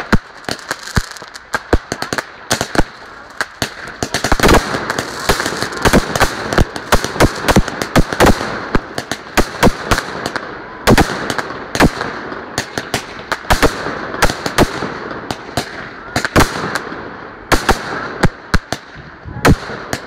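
Fireworks display: aerial fireworks bursting in quick, irregular succession, a few sharp bangs and pops a second over a continuous background noise.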